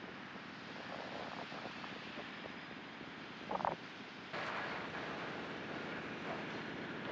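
Outdoor ambience: a steady haze of wind and distant traffic noise. A brief louder sound comes about three and a half seconds in, and the noise level steps up suddenly a little after.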